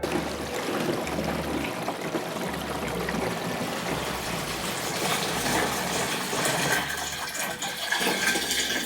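Water gushing steadily into a 100-litre camper-van water tank as it is filled to test the newly plugged and sealed openings for leaks.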